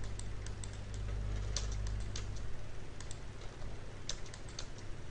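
Computer keyboard typing in scattered, irregular keystrokes, a few a second, over a low steady hum that drops away about halfway through.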